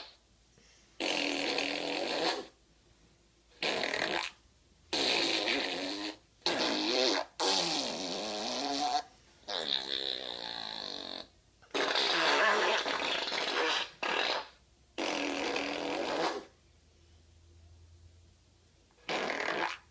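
A series of fart noises: about ten separate blasts, each lasting half a second to two seconds, with short quiet gaps between them. Some blasts waver in pitch.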